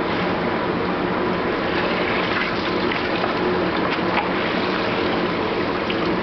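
Steady background noise of a commercial kitchen: a constant machine hum under a broad rushing noise, with a few light clicks.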